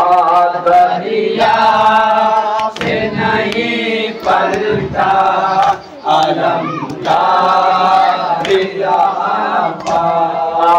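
Men and boys chanting a Shia noha (mourning lament) together in a steady call-and-response cadence. Rhythmic chest-beating (matam) strikes land about every second and a half under the voices.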